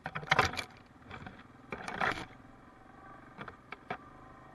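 Branches and brush scraping against a Yamaha Kodiak 700 ATV in several loud scratchy bursts over the first two seconds, then a few short sharp clicks near the end. Under it, the ATV's single-cylinder engine runs faintly and steadily.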